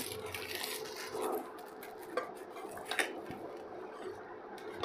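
Faint scraping and light clinks of a metal ladle against a steel cooking pot as cooked rice is lifted and turned, with two sharper taps about two and three seconds in.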